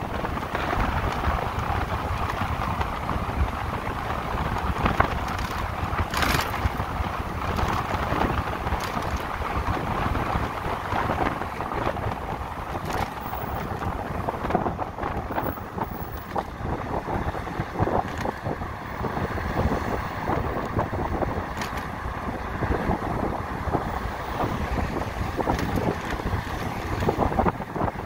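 Wind rushing and buffeting over the microphone of a moving electric motorcycle, with road noise beneath, steady throughout.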